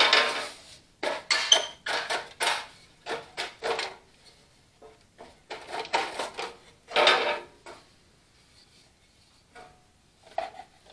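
Rusty sheet-metal dash housing of an Allis-Chalmers WD45 tractor being worked loose by hand and lifted off. It knocks, scrapes and rattles: a clatter at the start, short knocks about two a second for a few seconds, a longer scraping clatter around six to seven seconds in, then a few faint clicks.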